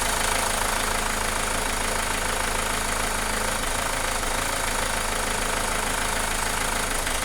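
Renault Mégane 2 engine idling steadily, running evenly with no shaking.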